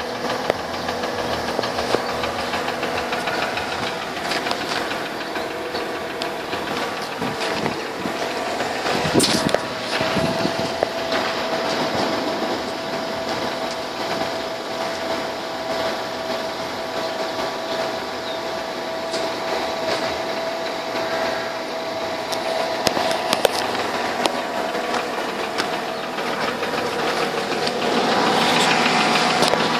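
Mercedes-Benz W211's M112 V6 petrol engine running with a steady, rapid knock. It gets louder near the end.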